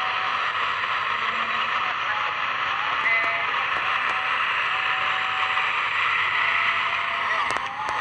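Steady roadside noise of traffic and voices, with a few faint short tones over it.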